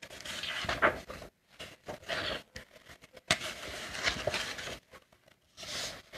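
Paper rustling as book pages are turned and leafed through, in several short scraping bursts with a few light taps in between.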